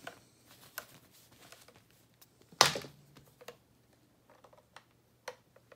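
A power cable and plug being handled and plugged into a knitting-machine selection box: scattered small clicks and rustles, with one sharp click about two and a half seconds in as the plug goes into its socket.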